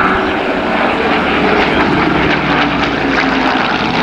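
Hawker Hurricane's Rolls-Royce Merlin V12 engine and propeller running at a steady drone as the fighter flies past overhead.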